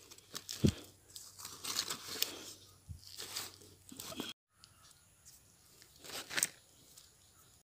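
Dry papery wrapping crinkling and rustling as it is handled and laid down, with two soft thumps as things are set on the leaf early on and a brief cut in the sound a little past the middle.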